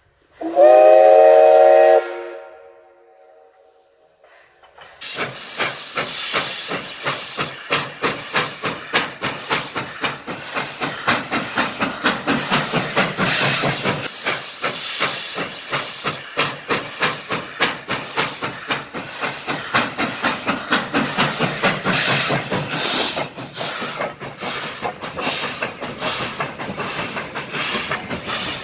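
Steam locomotive sounding its whistle once, a chord of several notes held for about a second and a half, then working past close by. Its exhaust chuffs in a steady quick beat of about two to three beats a second, with loud hissing steam.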